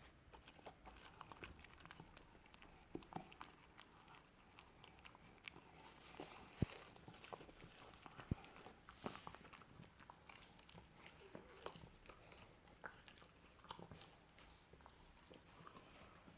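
Beagle puppy chewing and gnawing on a big treat: faint, irregular crunches and clicks of teeth, with two sharper snaps a little before the middle.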